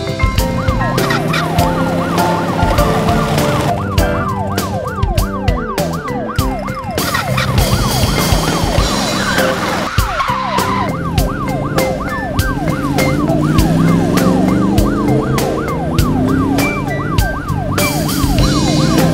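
Cartoon police siren sound effect yelping in fast rising-and-falling sweeps, about three a second, coming in a few seconds in. It plays over upbeat background music with a beat.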